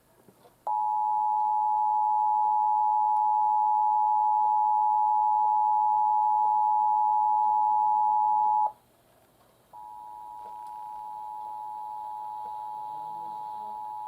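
EAS attention signal from a Sage ENDEC: the steady two-tone alert (853 and 960 Hz together) sounds for about eight seconds and stops. About a second later the same two-tone signal starts again, quieter, and carries on.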